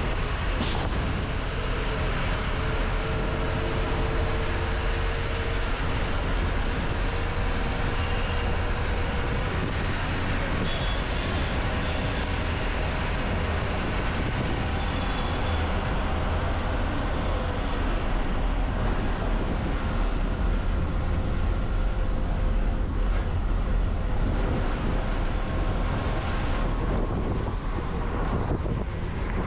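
A moving bus heard from inside its cabin: a steady engine and road rumble, with a faint steady whine in the first ten seconds or so.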